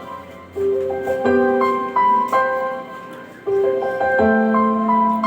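Slow piano ballad intro played back through 12-inch dB Technologies PA loudspeakers in a sound test: single held notes and chords in separate phrases.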